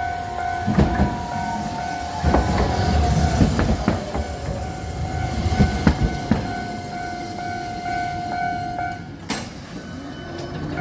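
Level-crossing warning bell ringing its steady "kan-kan" while a Utram low-floor tram goes through, with rumble, wheel clacks on the rails and a falling electric whine. The bell stops about nine seconds in, followed by a sharp click.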